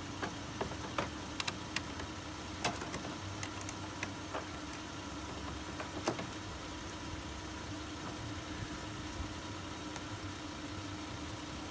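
Scattered light clicks and taps of a Torx screwdriver and plastic trim being worked loose, most of them in the first half, over a steady low hum.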